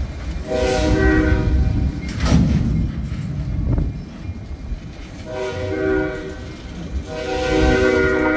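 A locomotive horn sounds three blasts, each a second or so long, the last still sounding at the end. Under them runs the steady rumble and clatter of loaded Herzog ballast hopper cars rolling past, with a sharp clank about two seconds in.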